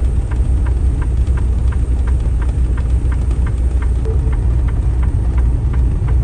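Semi truck's engine and drivetrain running as a steady low rumble, heard from inside the cab. A light, regular clicking sounds about three times a second throughout.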